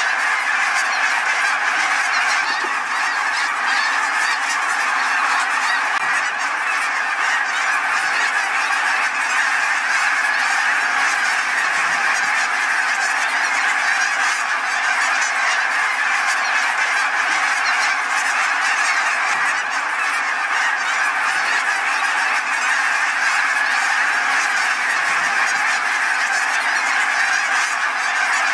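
A huge mixed flock of snow geese and Canada geese calling overhead: countless overlapping honks blend into a steady, unbroken din.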